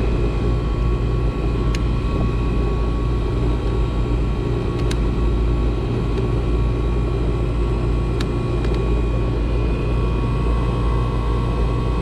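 Old packaged air conditioning unit running close by: its compressor and condenser fan motor give a steady hum and rumble with a steady whine, and a few faint ticks. The technician judges both motors healthy, with normal current draw.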